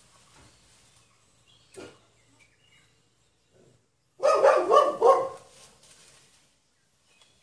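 A dog barks in a quick run of about four barks lasting just over a second, around the middle. Before that there is only faint rustling and one short knock.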